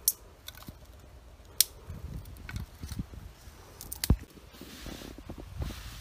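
Dry twigs snapped by hand: sharp cracks at the start, again about a second and a half in, and two close together around four seconds in, with rustling of dry leaves and sticks between them.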